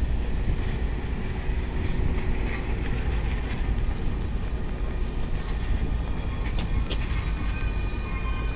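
Union Pacific passenger cars rolling past close by: a steady rumble of steel wheels on the rails, with a few sharp clicks in the second half.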